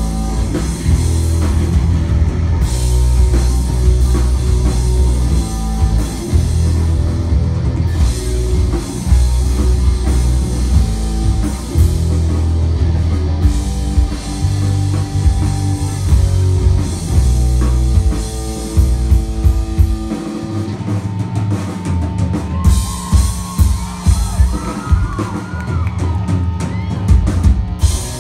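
Live rock band playing through a PA: distorted electric guitars, bass guitar and a full drum kit with kick drum.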